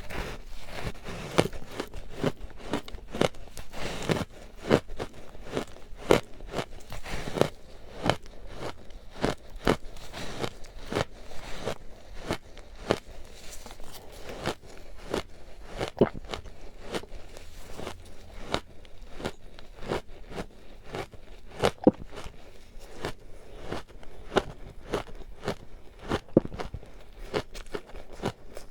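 Close-miked biting and chewing of ice dusted with matcha powder: a dense, irregular run of crisp crunches with louder single bites every second or two.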